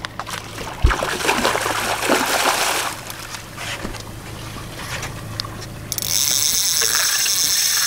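Water splashing as a hooked roosterfish thrashes at the surface beside the boat's hull, with a knock about a second in. About six seconds in, a steady high hiss starts abruptly.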